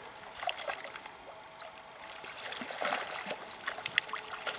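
Shallow river water running over stones, with small splashes and light clicks that grow busier in the second half.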